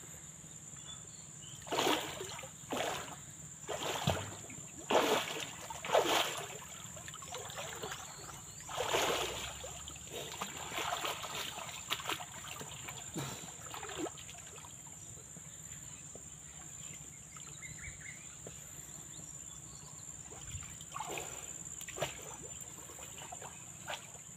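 Water splashing and sloshing in short bursts as swimmers stroke and dive in a shallow spring, over a low trickling hiss, with a steady high-pitched tone in the background.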